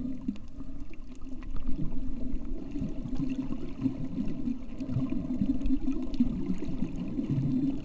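Muffled water noise heard through an underwater camera: a steady low churning rush with a few faint clicks.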